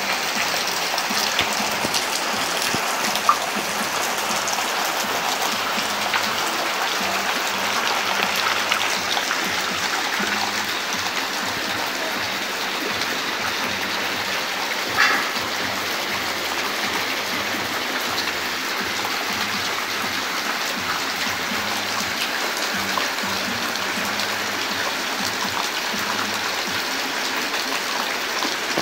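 Steady rain falling: an even hiss of drops, with a few brief sharper taps, the loudest about fifteen seconds in.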